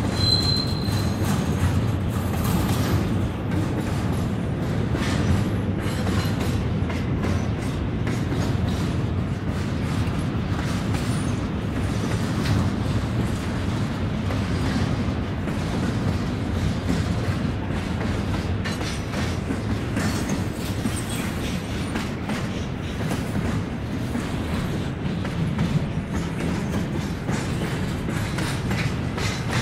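Double-stack intermodal freight train's well cars rolling past, a steady rumble of wheels on rail with light clatter, and a brief high squeal about half a second in.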